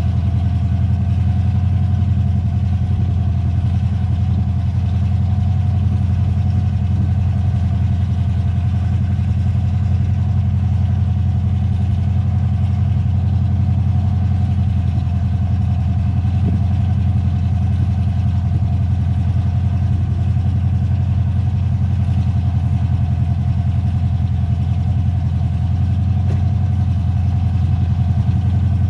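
A vehicle engine idling steadily, its speed and level unchanging throughout.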